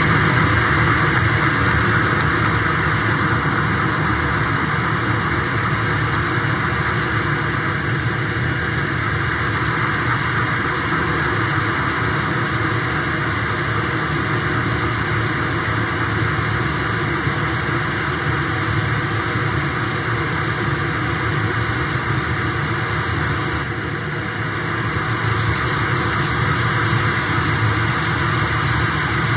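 Dense, steady wall of electronic noise from a live noise-music set, with a brief dip in loudness about 24 seconds in.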